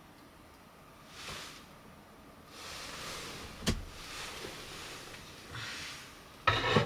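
Camp gear being handled close to the microphone: a few soft rustles, a sharp click about halfway through, and a louder rattling clatter near the end.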